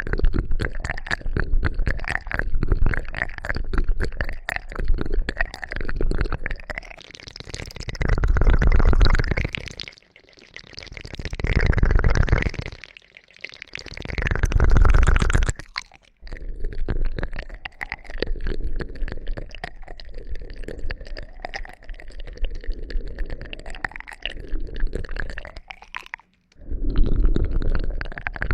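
Close-miked ASMR ear-cleaning sounds: dense crackling and clicking, broken by three longer rubbing swells in the middle.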